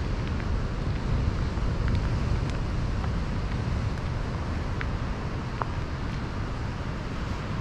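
Wind buffeting the microphone as a steady rumbling noise, with a few faint short ticks and pips scattered through it.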